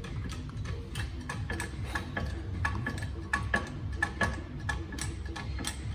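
Irregular light metallic clicks and clinks, some with a short ringing tone, from hand tools and metal parts being handled during work on the air-conditioning compressor clutch.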